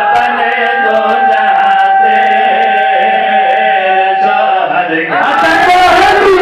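A man chanting a devotional qasida through a PA microphone, holding one long high note for about four and a half seconds. About five seconds in, a loud rush of noise covers the voice.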